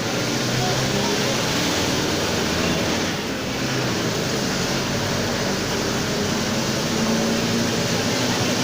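Mercedes-Benz OF 1721 BlueTec 5 bus running under way: a steady diesel engine note, with the driveshaft (cardan) growling loudly. The engine pitch shifts a little up and down.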